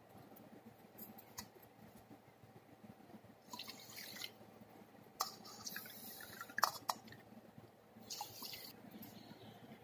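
Soaked little millet being washed by pouring water between two stainless steel bowls: soft trickling and dripping in a few short pours, with a few light clicks.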